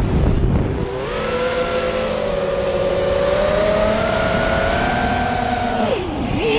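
FPV quadcopter's motors and propellers whining, heard from the camera on board. A low rush at first, then the whine climbs and holds for several seconds. Near the end it drops steeply and comes straight back up as the throttle changes.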